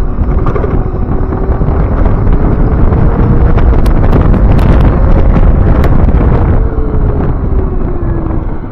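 Heavy wind buffeting on the microphone while riding an Ion Mobility M1S electric motorcycle, with a faint whine from its drive that rises in pitch as it accelerates, then falls as it slows near the end. A few sharp clicks come through in the middle.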